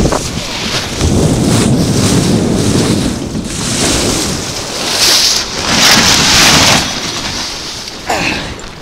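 Wind buffeting the microphone on a sailing yacht under way, with water rushing along the hull. A rumbling gust fills the first few seconds, and the hiss swells twice in the second half.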